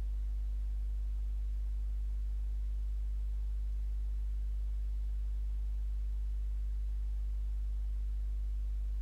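A steady low hum with nothing else over it.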